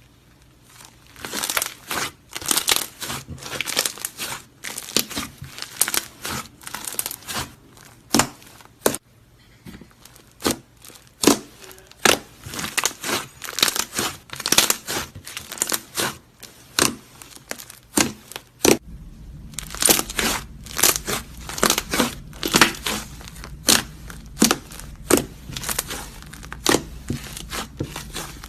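Slime being squeezed and poked by hand, giving a rapid, irregular string of sharp crackling pops. A low steady hum comes in about two-thirds of the way through.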